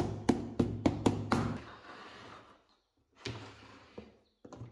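Ball-peen hammer tapping small nails into the hardboard back panel of a wooden speaker box: a quick run of light, sharp blows, about six or seven a second, that stops about a second and a half in and rings away. A softer knock and a couple of short clicks come near the end.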